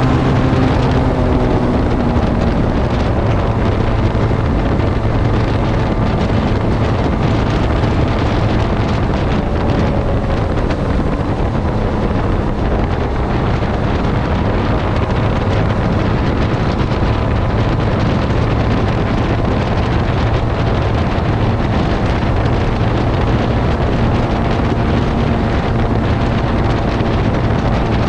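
Benelli TRK 502's parallel-twin engine running at a steady cruise through its stock exhaust, under heavy wind noise on the microphone.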